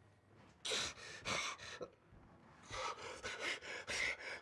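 A man panting and gasping for breath: two heavy breaths about a second in, then a quicker run of breaths from about three seconds in.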